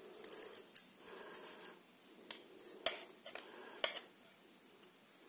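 Metal knitting needles clicking and tapping as they are handled: a quick run of light clicks in the first two seconds, then a few sharp single clicks, with quiet toward the end.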